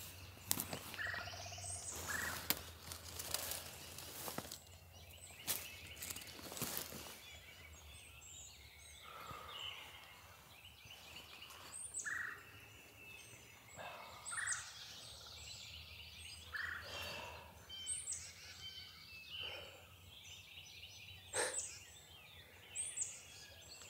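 Songbirds singing and chirping in spring woods. During the first several seconds dry leaves and feathers rustle and crackle as a dead wild turkey is handled on the leaf litter.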